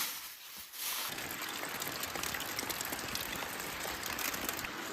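Rain falling steadily, a dense hiss full of small drop ticks, growing louder about a second in.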